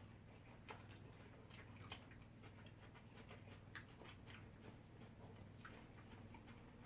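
Faint eating sounds: quiet chewing and scattered small clicks, a few times in all, from people eating soft rice and sauce with their hands, over a low steady hum.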